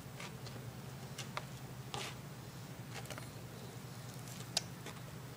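Faint scattered clicks and scuffs of a manual wheelchair rolling over gritty pavement, one slightly louder tick about four and a half seconds in, over a steady low hum.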